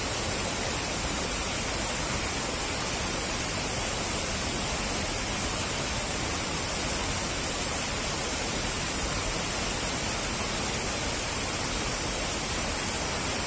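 Steady roar of a river in spate pouring over a small weir, the water rushing and foaming below it.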